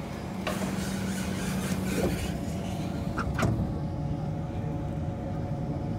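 Kawasaki C151 MRT train pulling away from the platform, heard from inside the car: a hiss begins about half a second in, there are clunks near two seconds and three and a half seconds, and a steady whine from its GTO chopper traction equipment sets in as it starts to move.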